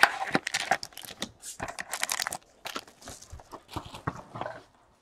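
A cardboard trading-card box and its wrapped card packs being handled: irregular rustling, crinkling and light clicks of card and wrapper, stopping shortly before the end.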